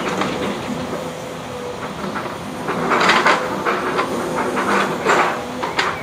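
Diesel engine of a Volvo wheeled excavator running steadily. Bursts of metallic clanking and rattling come in about three seconds in and again around five to six seconds in.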